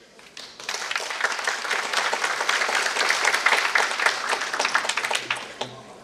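Audience applauding: many hands clapping, building up in the first second and dying away near the end.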